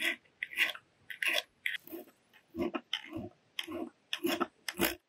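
A quick, uneven series of short taps or knocks, about two or three a second.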